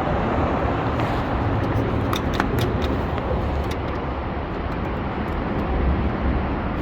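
Steady low vehicle engine rumble, with a few light clicks about two seconds in.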